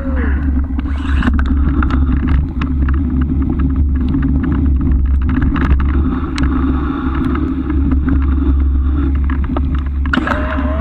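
Steady low rumble of wind buffeting a camera mounted on the back of a moving bike, with frequent clicks and knocks as the bike rattles over a rough track. A wavering tone is heard at the very start and again near the end.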